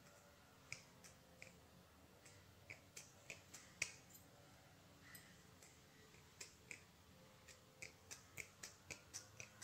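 Scissors snipping a thin metal sheet: a string of faint, sharp clicks at irregular intervals, coming closer together in the last few seconds.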